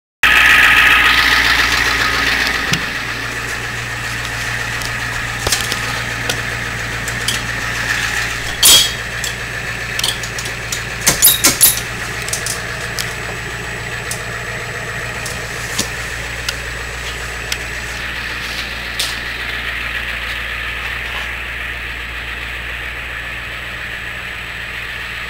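A 1989 school bus's diesel engine idling, heard from inside the bus as a steady low hum. A hiss fades over the first few seconds, and a few sharp clicks and knocks sound through the middle, loudest a quick run of three about eleven seconds in.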